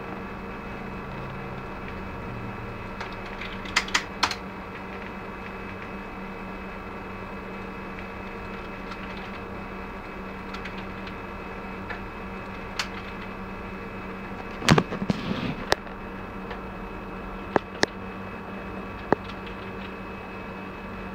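Sparse computer keyboard and mouse clicks, single taps and short clusters with long gaps between them, over a steady hum.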